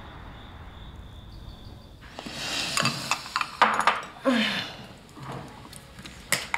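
Tableware handled at a dining table: chopsticks and bowls clinking and knocking, with several sharp clicks over a few seconds. Near the end comes a single sharp click as a plastic water bottle's cap is twisted open.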